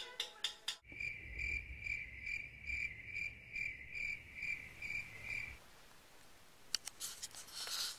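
An insect chirping in steady pulses, about two to three a second, for roughly five seconds, over a low rumble; faint clicks follow near the end.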